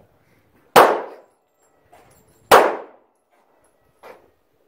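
Two gunshots from a compact double-stack handgun, about two seconds apart, each sharp crack followed by a short ringing decay.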